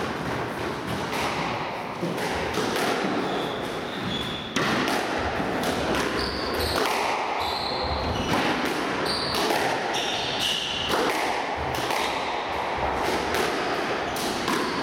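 Squash rally: the ball cracking off rackets and the walls at irregular intervals, with short high squeaks of players' shoes on the wooden court floor.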